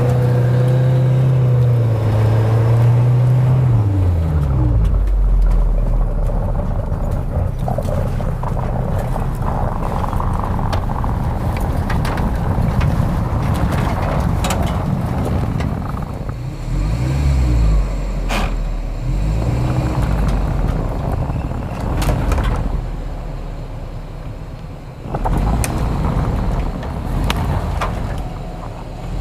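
4x4 SUV engine working hard up a snowy slope, revving up and down in surges over a steady low drone. There are a few sharp knocks along the way.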